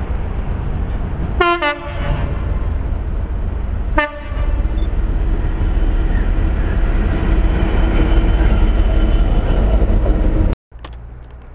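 Class 66 diesel locomotive running light: its horn sounds twice, about two and a half seconds apart, over the engine's low rumble, which grows louder as the locomotive passes close by. The sound cuts off suddenly near the end.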